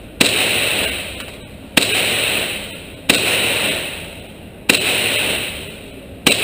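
Five gunshots fired at a steady pace, about one and a half seconds apart, each followed by a long echoing tail that dies away before the next shot.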